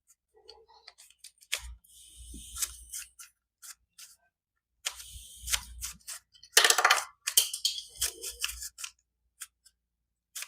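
Plastic Rubik's cube being turned by hand: sharp clicks and short clattering bursts as its layers rotate and snap into place, coming in several bunches with quiet gaps between.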